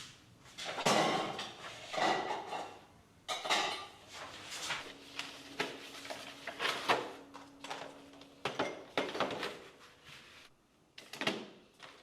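Household handling sounds: a string of knocks, clicks and clatter with swishing and rustling as things are moved, set down and put away. A low steady hum runs for a few seconds in the middle.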